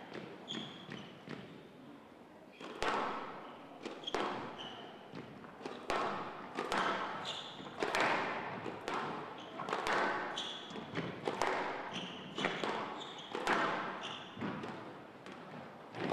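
A squash rally: the ball is struck by rackets and smacks off the walls in a steady run of sharp hits, one or two a second, starting about two and a half seconds in, each ringing on in the big hall. Short high squeaks of court shoes come between the hits.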